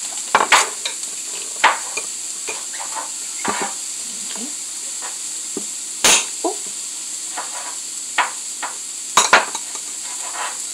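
Cauliflower rice and butter frying in a nonstick pan, sizzling steadily. A dozen or so short sharp clicks and knocks come through it, the loudest about six seconds in.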